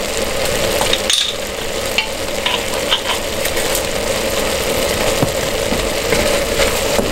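Ground beef with onion and bell pepper sizzling steadily in a pot on the stove, with a wooden spoon stirring through it near the end.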